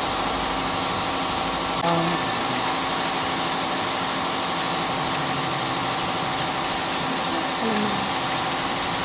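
Machinery of a walking animatronic dinosaur running steadily, with a strong high hiss, as its joystick-driven base moves it. Faint voices are heard briefly about two seconds in and near the end.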